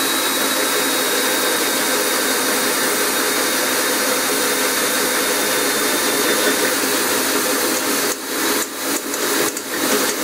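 Handheld power drill boring a hole through a thin-walled steel frame tube, running steadily. Near the end it stops and starts several times as the bit breaks through the tube wall.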